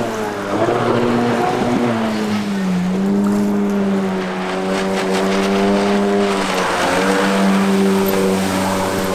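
Yamaha WaveRunner III's 650 two-stroke twin running under way on the water, its pitch shifting a little with the throttle and then holding steady. The engine has a freshly rebuilt top end and runs smoothly, with no rattling.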